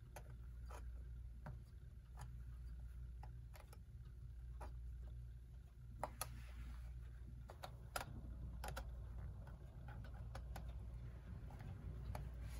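Irregular small metal clicks and taps as the tabs on a mantle clock's bezel are bent back in to secure the glass rim over the dial, two of them a little louder about six and eight seconds in, over a low steady hum.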